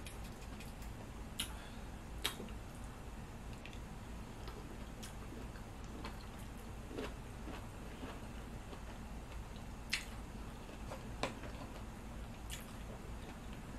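Close-up eating sounds: chewing and wet mouth sounds with scattered sharp clicks and smacks, the loudest about two seconds in and near ten seconds, over a steady low hum.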